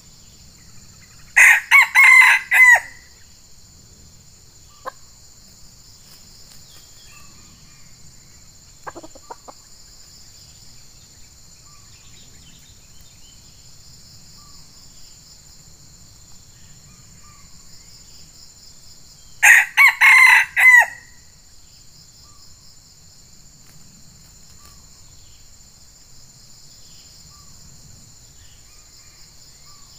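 Red junglefowl rooster crowing twice, each a short, clipped crow of about a second, the two about eighteen seconds apart, over a steady high drone of insects.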